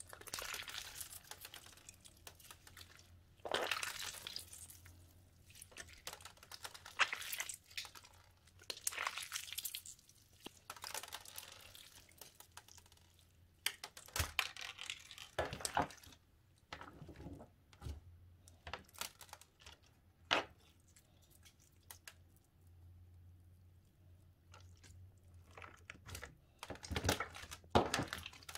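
Bead-filled slime being squeezed, stretched and pressed by hand, giving irregular bursts of crunchy crackling as the beads squish, with a few quieter pauses.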